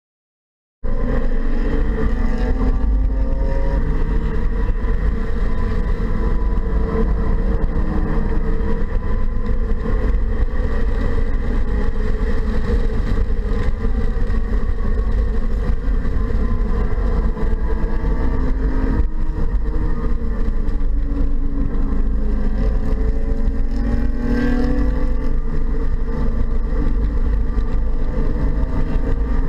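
2015 BMW 228i's turbocharged four-cylinder engine heard from inside the cabin under hard track driving, its pitch rising and falling with the throttle and gear changes over a steady low rumble of road noise. The sound cuts in suddenly about a second in.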